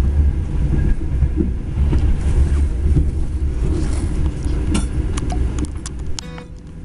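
Passenger train running, a steady low rumble heard from inside the carriage, with a few sharp clicks near the end. Acoustic guitar music fades in over it just before the end.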